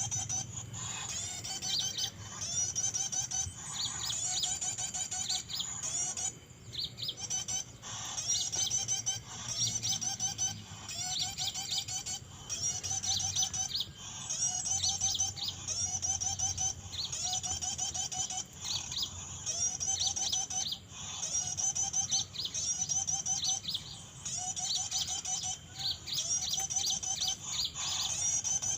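Songbird song: short, high, quick warbling phrases repeated about every one and a half to two seconds, each with sharp rising strokes and a lower note beneath.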